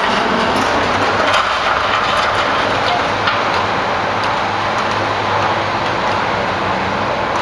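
Heavy demolition machinery running: a steady diesel drone with a low hum, with a few scattered light clinks.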